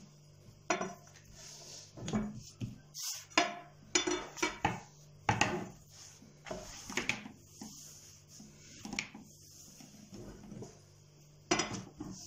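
Long thin metal rolling pin (oklava) rolling and knocking on a wooden table as a sheet of dough is rolled out around it: irregular clacks with a light metallic clink, some louder than others.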